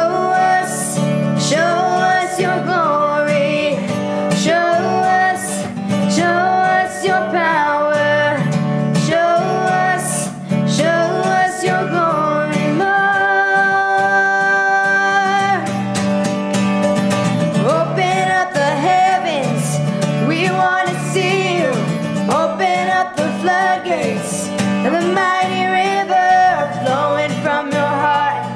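A singer performing a worship song over acoustic guitar accompaniment. The voice slides through wavering runs and holds one long steady note about halfway through.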